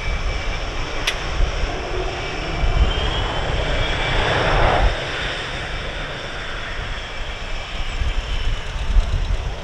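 Twin jet engines of an F/A-18 Hornet running at taxi power as the fighter rolls past, a high whine that swells to its loudest about halfway through and then eases off, over a steady low rumble. A single sharp click about a second in.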